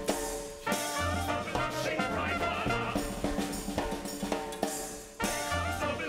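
Jazz-age band music with a drum kit, snare and bass drum and low bass notes underneath, swelling back up twice after brief dips.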